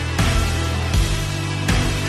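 Background music: a heavy rock track with distorted guitars and a steady beat.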